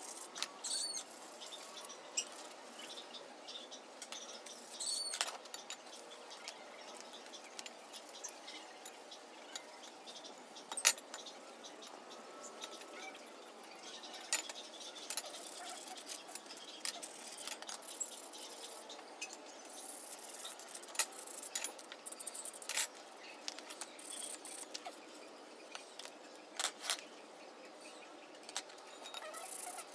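Scattered light metal clinks and taps of painted steel bars being handled and set down on a concrete floor, a few sharper knocks among them, with two short high chirps in the first few seconds.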